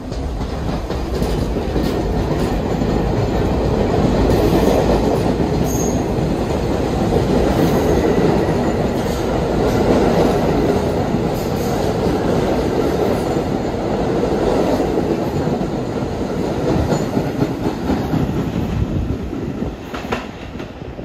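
A New York City subway train running along the rails, loud and steady for most of the time and easing off near the end, with a brief high squeal about six seconds in.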